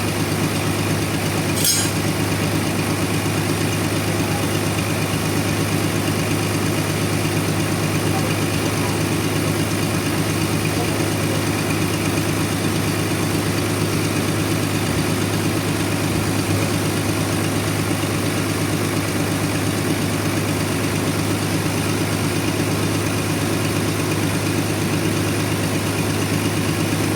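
Sawmill machinery running steadily, a constant engine drone with no change in pitch, with one short click about two seconds in.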